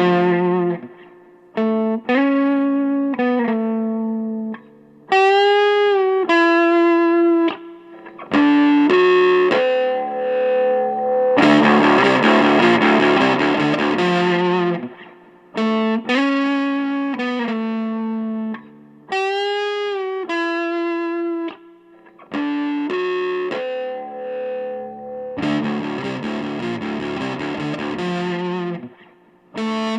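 Electric guitar driven through a GC-1 clone drive pedal into a tube amp, playing sustained distorted single-note lead lines with bends and vibrato, between thicker distorted chords.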